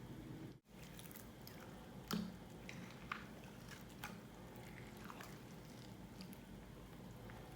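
Glue slime being squeezed and worked by hand: faint soft squishes with scattered sticky clicks and pops, the loudest a little after two seconds and again about three seconds in.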